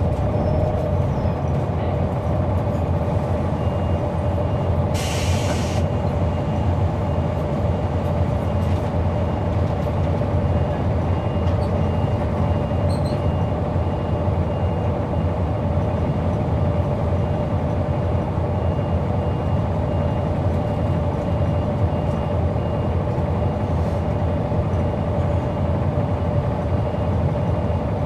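Caterpillar C9 ACERT diesel of a 2004 Neoplan AN459 articulated bus running steadily, heard from inside the passenger cabin as an even drone. A short hiss of air comes about five seconds in.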